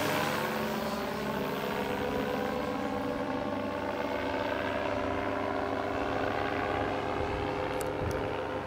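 Flex-wing microlight trike's engine and pusher propeller droning steadily as the aircraft climbs away after passing overhead, slowly fading.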